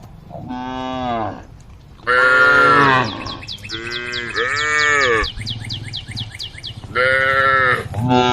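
Cows mooing: about six long calls from the herd, each rising and then falling in pitch, some overlapping. A rapid series of high chirps runs through the middle.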